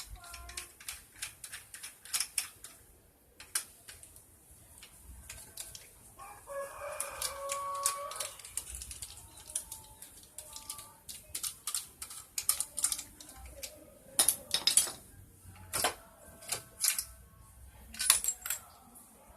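Hand tools and metal engine parts clicking and clinking irregularly during engine disassembly. A rooster crows once, about seven seconds in, for about two seconds.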